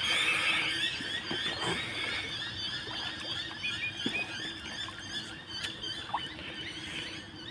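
A dense chorus of many overlapping high-pitched animal chirps and squeals, thinning out toward the end.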